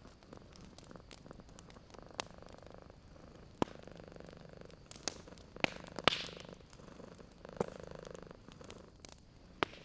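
A domestic cat purring, the purr swelling and easing with its breaths, over a wood fire crackling with sharp, separate pops, about seven in all, the loudest a little past halfway.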